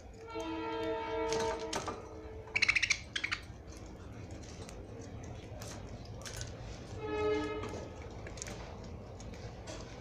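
Pet budgies in a cage: a quick run of sharp, high budgie chirps about two and a half seconds in, the loudest sound, among small scattered clicks. Two long steady pitched tones, one near the start and a shorter one about seven seconds in, sound behind them from an unseen source.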